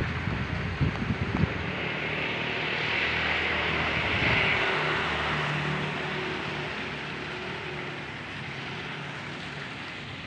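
A distant aircraft passing: a steady rushing noise that swells to its loudest about four seconds in, then slowly fades. Wind rumbles on the microphone for the first second or so.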